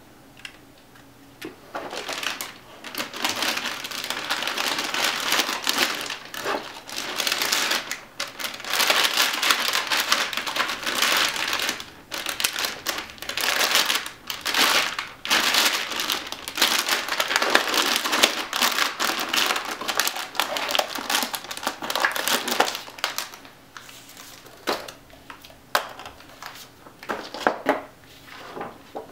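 Metallic anti-static bag crinkling as it is handled. The crinkling starts about two seconds in and is dense until near the end, then turns into a few separate crackles.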